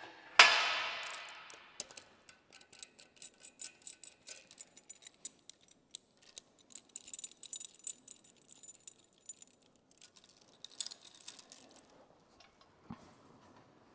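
Steel lifting chain of a shop engine hoist clinking and rattling as it is worked loose from an engine, with one sharp metal clank that rings briefly about half a second in.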